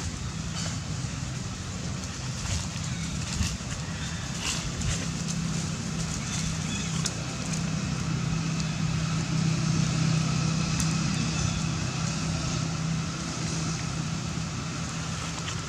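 A motor engine running steadily, its low hum growing louder through the middle and easing off again near the end.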